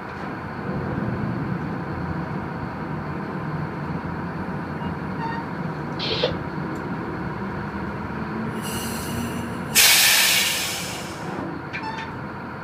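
Tugboat's diesel engine running, heard through the wheelhouse window, picking up about half a second in. About ten seconds in, a loud hiss breaks in and fades away over about a second and a half.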